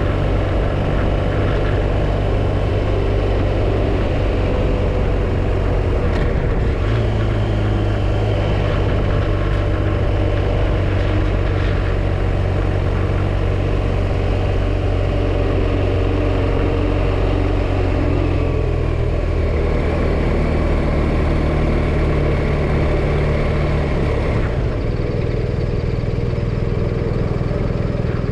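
BMW R1250RT motorcycle's boxer-twin engine running while riding, with road and wind noise. Its note steps to a new steady pitch three times as the engine speed changes.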